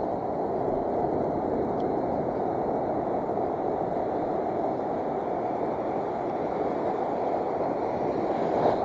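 Steady, muffled rushing of wind and heavy surf, deep and unbroken, with no distinct events.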